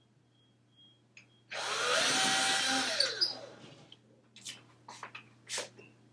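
Power drill with a 3/16-inch bit drilling a hole in the wall for a plastic anchor: a burst of about a second and a half, the motor's pitch rising and then falling as it winds down. A few light clicks follow near the end.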